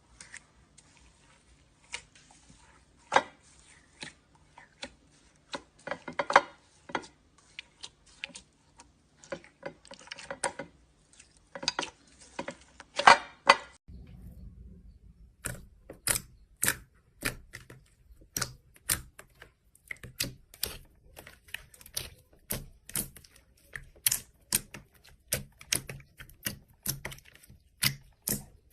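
Slime being squeezed and poked, giving off a series of sharp clicks and pops. The clicks come irregularly at first, then about halfway through, after an abrupt cut, in a steadier pattern of one or two a second.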